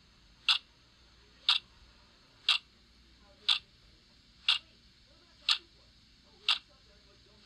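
Clock ticking sound effect: a sharp, even tick about once a second, marking time passing.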